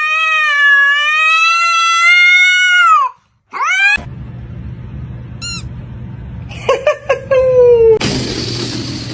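A domestic cat gives one long, drawn-out meow lasting about three seconds, then a short rising meow. More meows with falling pitch follow over a background hum, and a noisy burst of sound comes near the end.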